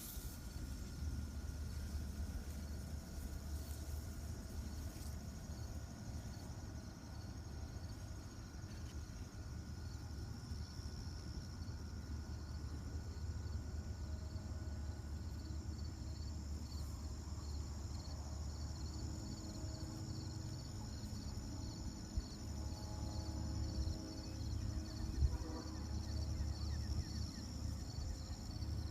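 Insects chirping in a steady, even rhythm, high-pitched and faint, over a low steady rumble.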